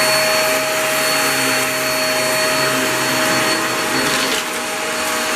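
Hoover React Professional Pet upright vacuum cleaner running steadily, its motor giving a constant whine over the rush of suction air as it picks up rabbit litter. The brush roll is in hard-floor mode. The level dips briefly about four seconds in.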